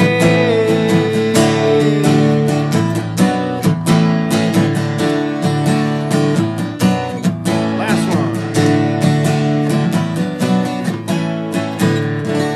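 Live band playing the instrumental ending of a country-rock song, acoustic guitar strumming steady chords, gradually getting quieter toward the end.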